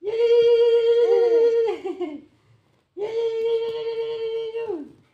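A voice holding two long, steady sung notes, each about two seconds, at the same fairly high pitch, each ending with a short downward slide. During the first note, a second voice slides up and down underneath it.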